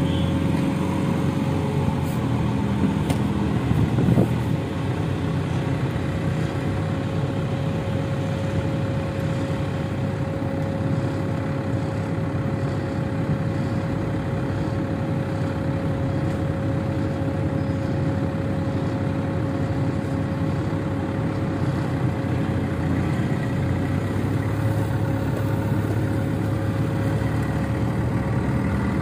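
Backhoe loader's diesel engine running steadily as it handles a concrete barrier block with its front bucket, with a constant high note over the rumble. A brief clunk about four seconds in.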